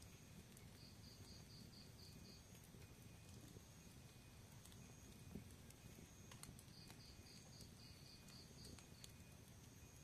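Fire burning quietly, a low rumble with a few scattered crackles and pops, one sharper pop about halfway through. Twice, a quick run of faint high chirps.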